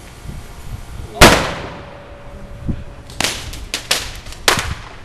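Firecrackers going off: one loud bang about a second in with a long fading echo, then a quick string of sharp cracks over the last two seconds.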